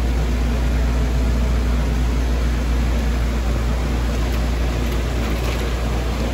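Steady low hum and even whir of a Willis CNC flat bed lathe standing under power, with a constant hiss over it.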